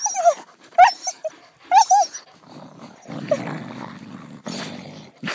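Dogs at rough play: three short, high yips about a second apart, then a low, rough growl from about three seconds in.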